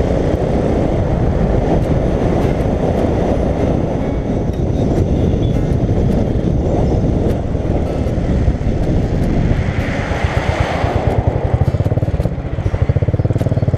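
Royal Enfield Continental GT's single-cylinder engine under heavy wind rush on a helmet-mounted camera at highway speed. About ten seconds in the wind eases and the engine's even, rapid thump comes through as the bike slows.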